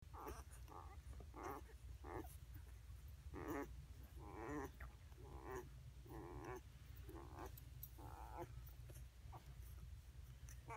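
Eight-day-old basset hound puppies whimpering and grunting as they nurse: faint, short squeaky cries about once a second. A steady low hum runs underneath.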